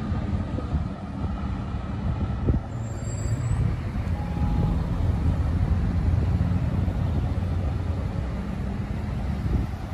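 Road traffic on a busy multi-lane street: a steady low rumble of car engines and tyres, swelling as vehicles move through a few seconds in.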